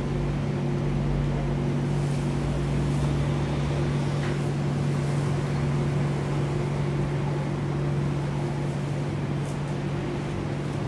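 Steady low hum with a hissing background, from an unnamed running machine or appliance in the room. Faint, scattered scrapes of a metal carving instrument shaving a wax tooth block are heard under it.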